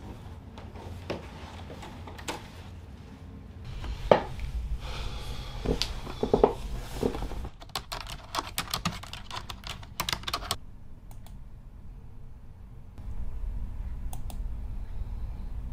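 Typing on a computer keyboard: scattered keystrokes and a few heavier knocks at first, then a quick run of rapid keystrokes about halfway through, and a few single clicks near the end. A low steady hum lies underneath.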